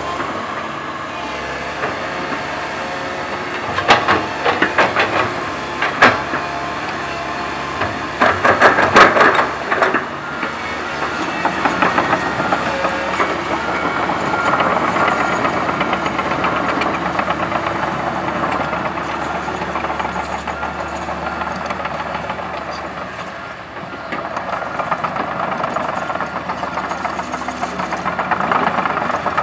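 Komatsu PC130 hydraulic excavator working, its diesel engine running steadily, with short bursts of metallic clanking and rattling about 4, 6 and 9 seconds in. The engine noise grows louder from about 11 seconds.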